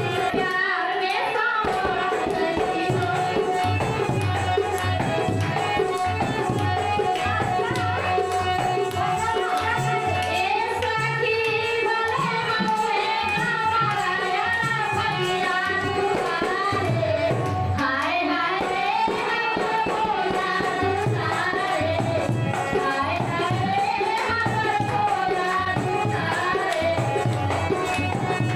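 Live devotional bhajan music: a tabla keeping a steady rhythm under a sung melody, with a held drone tone throughout.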